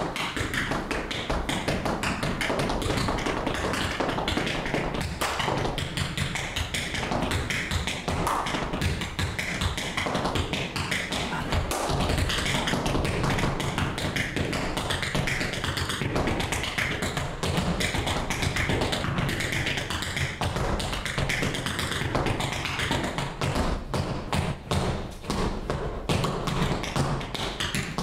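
Tap shoes striking a hard dance-studio floor in a fast, unbroken stream of tap-dance steps, with the metal taps clicking sharply many times a second.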